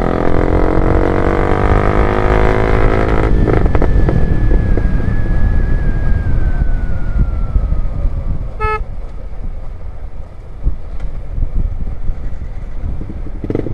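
Loud motorcycle accelerating, its engine note climbing for about three seconds, then running on with a low rumble of engine and wind. A short horn toot sounds a little past the middle.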